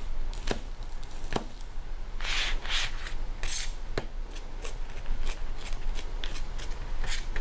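Rada French Chef Knife chopping green onions on a cutting board: sharp knocks of the blade on the board, spaced out at first and then quicker. There is a brief scraping sound about two seconds in.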